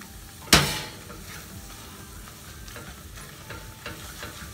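A spatula stirring and mashing potatoes and cream in a nonstick pan, with a steady sizzle from the hot pan. One sharp knock of the spatula against the pan about half a second in, then lighter scrapes and taps.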